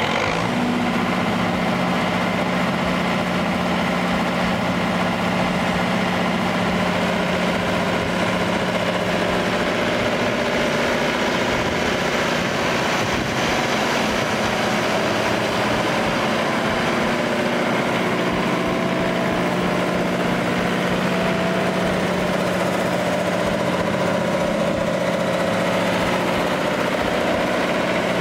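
Yanmar four-cylinder turbocharged diesel engine of a 40 kW generator set running steadily with an even hum.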